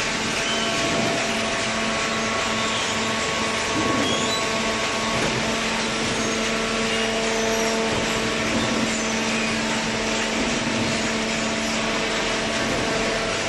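Hydraulic baling press running: a steady machine hum with several held tones over a noisy drone, as from its electric motor and hydraulic pump.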